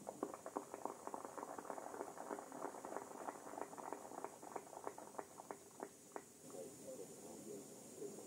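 Scattered applause from spectators at a skeet range, following a shot. The clapping thins out and stops about six seconds in.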